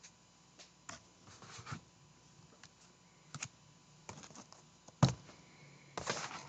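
Trading cards being handled on a table: a few light clicks and short scratchy rustles as cards slide against each other, with a sharper knock about five seconds in.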